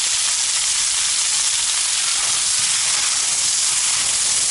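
Meat and onions frying in a sadj pan over a campfire: a steady, even sizzle.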